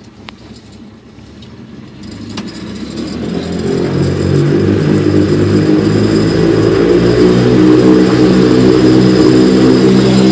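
MWfly aircraft engine on a test bench idling at about 950 rpm, then throttled up about two seconds in. It speeds up over the next two seconds and holds a steady high-rev run.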